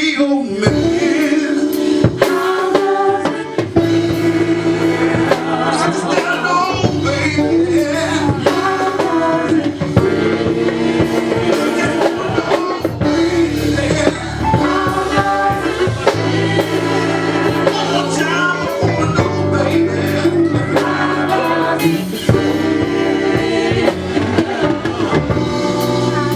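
Live band playing a song: a singer over drums, bass, keyboards and guitar.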